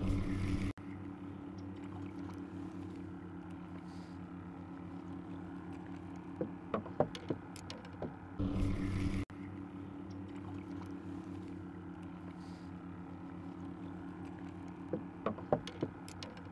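A steady low mechanical hum runs throughout, with small handling clicks and two short loud rustling bursts, one at the start and one about eight seconds in.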